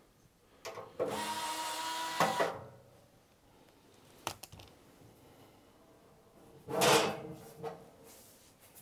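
Cordless drill-driver running for about a second and a half as it backs a screw out of a metal battery case lid. A few seconds later comes a short scraping clatter as the sheet-metal lid is lifted off.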